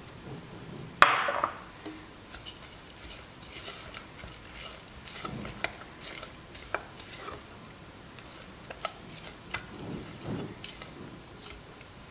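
Silicone spatula stirring and scraping a thick almond and condensed-milk paste in a stainless steel saucepan, with light clicks of the spatula against the pan. A loud sharp knock against the pan about a second in.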